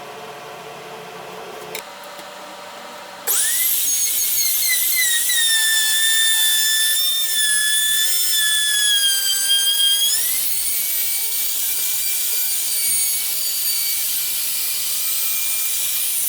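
A high-speed electric power tool switches on with a sudden loud, high-pitched motor whine. From about two seconds after starting its pitch sags, as it does under load when cutting into wood, then rises back about ten seconds in and stays steady.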